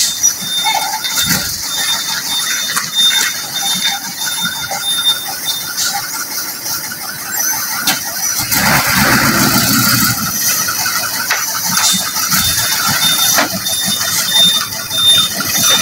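Mitsubishi Fuso LPG tanker truck driving slowly past on a dirt track, its diesel engine loudest about halfway through as it passes close by. A high-pitched squeal comes and goes throughout.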